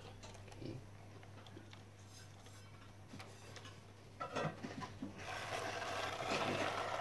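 A few light plastic clicks, then from about five seconds in a plastic toy car-carrier truck loaded with small toy cars rolls across a tiled floor, its wheels rattling and rubbing on the tile.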